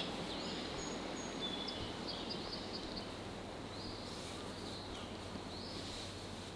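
Quiet countryside ambience: a steady low background hiss with several short, thin, high-pitched bird calls scattered through it.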